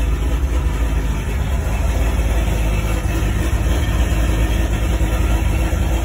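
Cammed 6.0 L V8 of a Pontiac G8 GT idling, a steady low rumble heard from inside the cabin.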